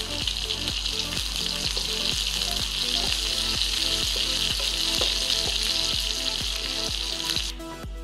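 Spices and curry leaves sizzling hard in hot oil in a tempering (chhunka) pan: mustard seeds, dried red and green chillies, crushed garlic and fresh curry leaves frying. The sizzle cuts off abruptly near the end.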